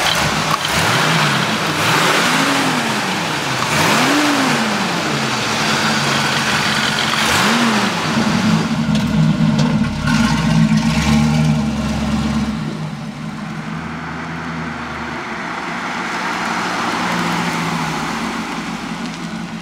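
1968 Chevrolet Camaro's high-performance 327 V8 with dual exhaust revved in four quick blips, each rising and falling, then running steadily, quieter in the second half.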